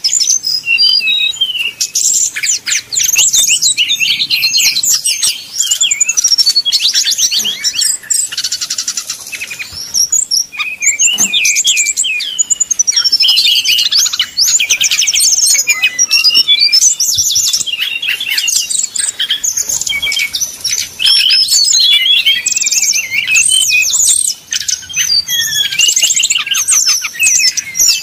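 Brown-chested jungle flycatcher (sikatan rimba dada coklat) singing a loud, nearly continuous song of rapid trills and chattering phrases, with only brief breaks.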